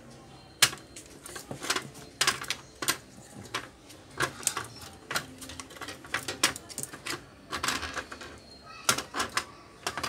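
Irregular light clicks and taps from a microwave oven control circuit board and a soldering iron being handled during soldering, one to three a second at uneven spacing.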